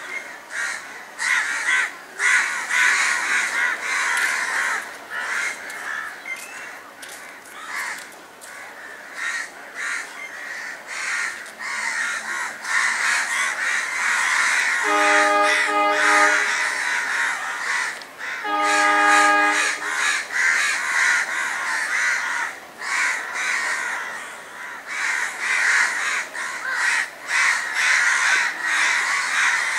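Many crows cawing continuously, with a train horn sounding two blasts about halfway through, each lasting a second or so.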